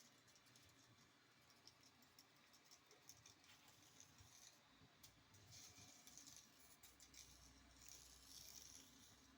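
Near silence: room tone with a few faint small clicks and rustles.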